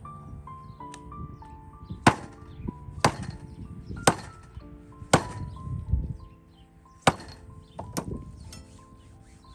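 A heavy cleaver chopping through a goose carcass into a wooden log block: six sharp chops about a second apart, with a brief gap after the fourth. Soft background music plays underneath.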